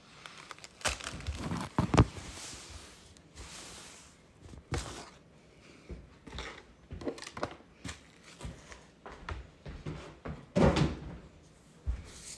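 Scattered knocks and thuds of things being handled and set down, the loudest about two seconds in and another near the end.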